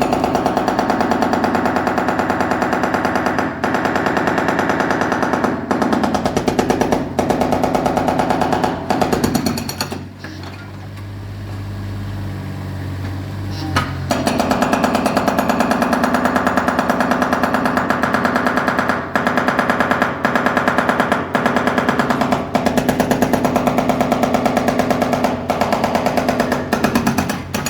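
Large jackhammer pounding with rapid, evenly repeated blows in two long runs, stopping for about four seconds near the middle while a lower steady engine hum carries on.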